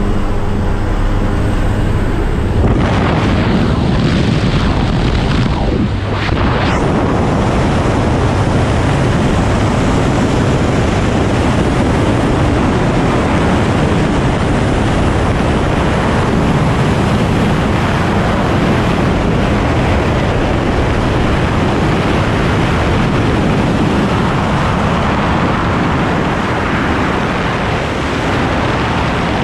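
A low, steady aircraft drone for the first few seconds, then, about three seconds in, a loud, steady rush of freefall wind buffeting the camera's microphone.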